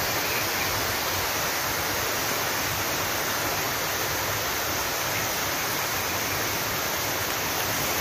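Steady, even rushing of running water.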